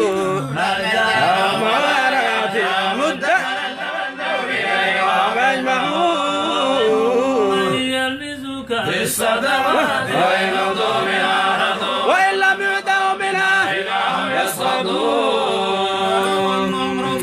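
Group of men's voices chanting together, several voices overlapping in a continuous vocal chant.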